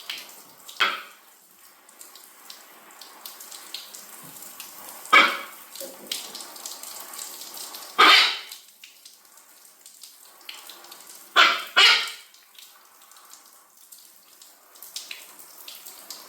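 Macaw squawking in short, loud calls, five in all with two close together near the end, over the steady run of a tap or shower during its bath.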